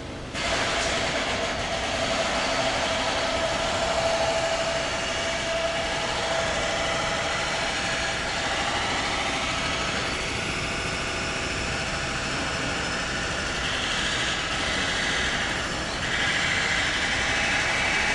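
Loud, steady noise of passing road vehicles, starting abruptly about half a second in, with a faint steady hum over the first few seconds and a brighter hiss coming up near the end.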